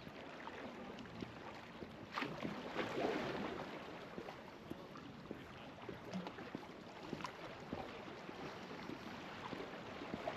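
Small sea waves lapping and washing, with many small irregular splashes and a louder wash about two seconds in.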